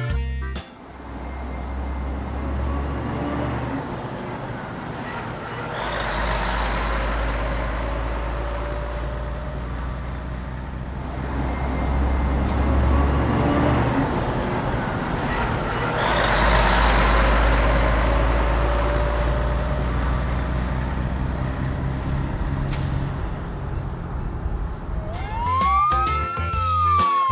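Toy fire truck's electronic sound effects: a rumbling engine noise that swells and fades in long waves, then a siren wailing up and down near the end.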